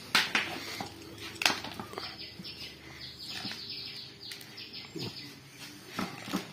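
A clear plastic jar knocks and scrapes on a concrete floor as an Indian cobra (Naja naja) is guided up into it, its coils rustling against the plastic. There are sharp knocks just after the start and at about a second and a half, and lighter ones later.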